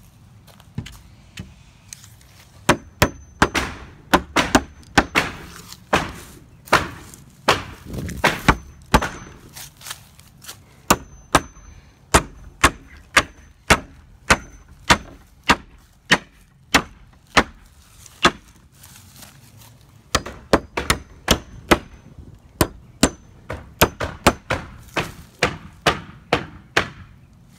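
Claw hammer driving loose nails back into weathered wooden fence boards: sharp strikes in runs of about two blows a second, with brief pauses between nails.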